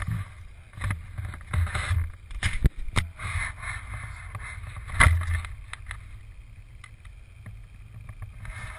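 Scattered knocks and clatter on an aluminium fishing boat as a largemouth bass is landed by hand, the loudest knock about five seconds in, over a gusting low rumble of wind on the microphone.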